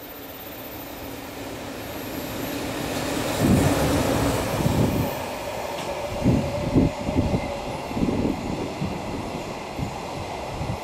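A freight train hauled by a JNR Class EF65 electric locomotive passes close by with a train of empty container flatcars. It grows louder as it approaches, then the wagon wheels clank over the rail joints in quick groups of heavy thumps, with a steady whine under them for a few seconds in the middle.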